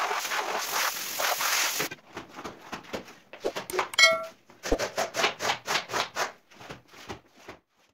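Pressure-washer spray hissing steadily onto the wet rug, cutting off about two seconds in. Then a quick run of floor-squeegee strokes scraping water across wet tiles, about two a second, with a brief chime partway through.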